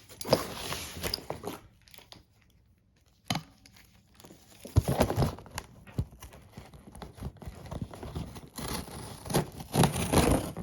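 Packaging being torn open by hand: tape and cardboard ripping and crinkling in irregular bursts, with a pause and a single click part-way through, then continuous rustling and tearing.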